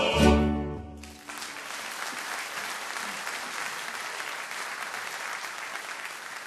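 A piece of music ends on a final chord about a second in, and applause follows at once and keeps going.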